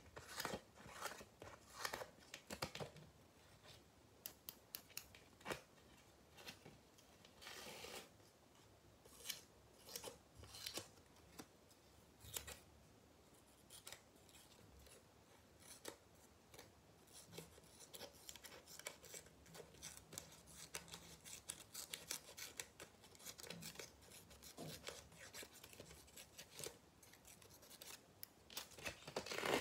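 Hairdressing scissors snipping close to the microphone: quick, irregular snips, some in fast runs, with a brief rasping rub about eight seconds in.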